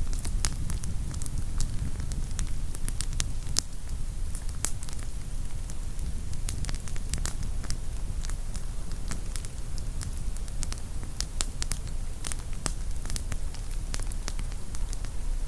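Wood campfire crackling, with frequent irregular sharp pops of burning firewood over a steady low rumble.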